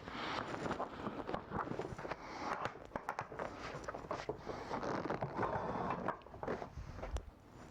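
Irregular rustling and scraping of leather upholstery being handled and stretched over a seat, with scattered small clicks and knocks.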